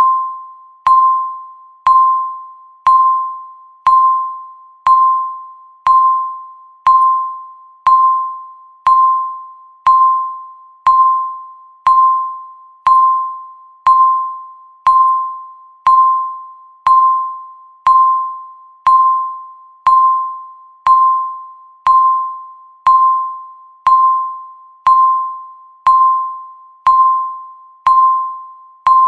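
Countdown timer beep: a single bell-like tone struck once every second, each fading away before the next.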